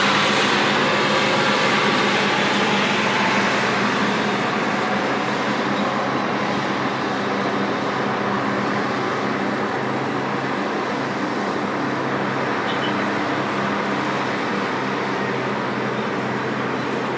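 Heavy diesel earthmoving machinery running: a Terex TS-14B scraper's two Detroit Diesel 4-71 two-stroke engines, loud at first, easing over the first few seconds into a steady engine drone with a clear pitch.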